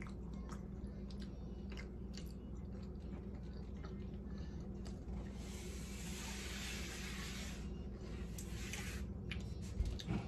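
Quiet chewing with scattered small mouth clicks over a steady low hum, and a soft hissing noise of about three seconds midway.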